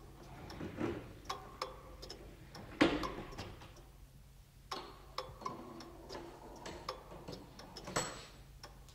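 Radio-play sound effect of a robot switching on after its activation button is pressed: a run of mechanical ticks and clicks over a low hum, with a loud sharp clack about three seconds in and another just before the end.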